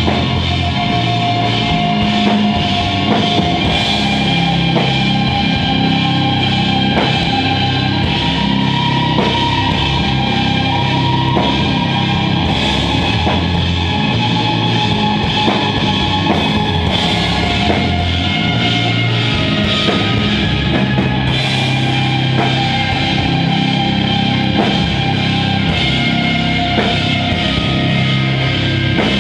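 Live rock band playing loud and heavy: electric guitars, among them a Telecaster-style guitar, over a drum kit keeping a steady beat.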